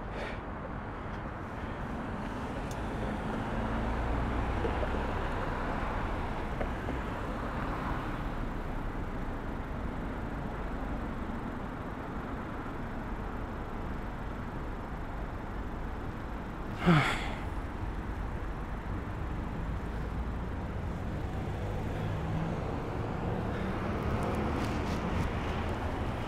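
Steady street traffic and road noise heard while riding a bicycle along a city street, swelling a little as vehicles pass, with one brief sharp sound about two-thirds of the way through.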